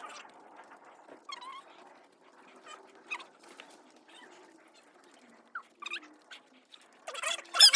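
A dog whimpering and whining in short, scattered calls, which get louder and come thick and fast near the end.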